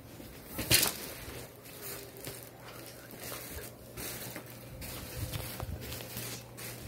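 Rustling and scuffing of a person moving and flailing about, with one sharp knock or slap about a second in.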